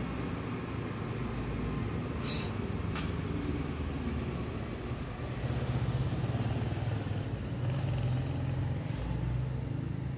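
Domestic cat purring close to the microphone while being stroked: a steady low rumble that grows louder about halfway through. Two short clicks a couple of seconds in.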